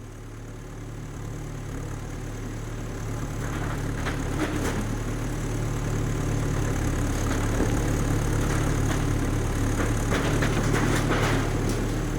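Rottne Rapid forestry machine's 200-horsepower diesel engine running steadily, growing louder over the first few seconds. Over it come irregular clusters of cracking and knocking, a few seconds in and again near the end.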